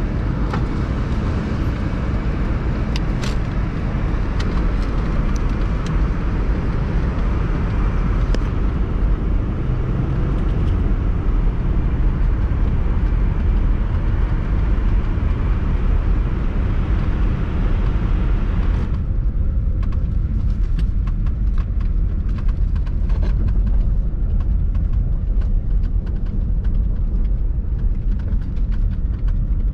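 Vehicle driving over a snow-covered road, heard from inside the cab: a steady low rumble of engine and tyres. About two-thirds of the way through, the higher hiss drops away abruptly, leaving the low rumble with faint crackling.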